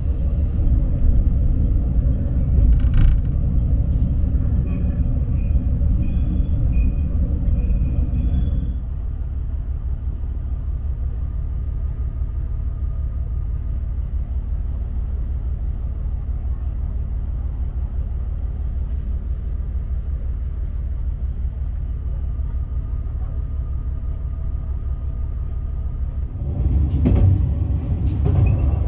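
Steady low rumble of a diesel railcar running, heard from inside the passenger cabin. A thin high tone rings over the first eight seconds or so. The rumble then drops to a quieter, even level, and grows louder again a couple of seconds before the end.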